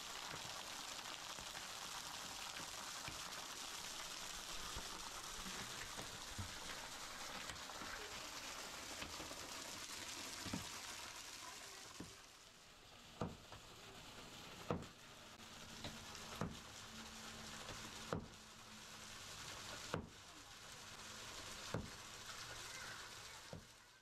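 Water pouring and splashing over rock in a steady hiss; from about halfway through, a sledgehammer and pickaxe knock on the stone, about six blows spaced a second and a half to two seconds apart.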